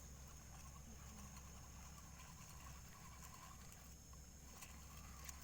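Near silence: a faint steady low hum with a faint steady high hiss, and nothing sudden.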